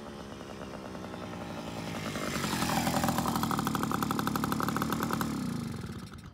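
1978 Sears Free Spirit moped's small two-stroke engine running as it is ridden up and past close by. It grows louder over the first two to three seconds, holds steady, then drops away near the end.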